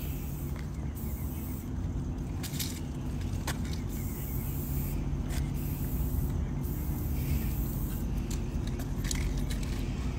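Aerosol spray-paint can hissing in several short bursts as paint is sprayed onto a wall, over a steady low hum.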